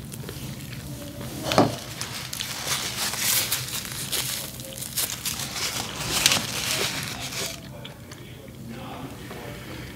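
Close-up eating sounds: a person biting and chewing a shrimp taco, with crackling, crinkly mouth noises and a sharp smack about a second and a half in. It quietens for the last two seconds or so.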